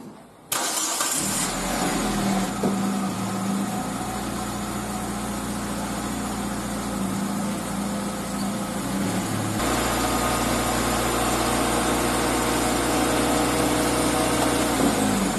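Car engine starts about half a second in and runs, turning the raised wheels. The low hum shifts and gets stronger about ten seconds in as the speed changes. No scraping is heard, because the bent brake dust shield no longer rubs on the brake disc.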